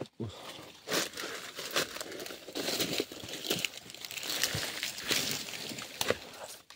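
Footsteps crunching and rustling through dry undergrowth: an irregular run of crackles, with a few sharper snaps scattered through.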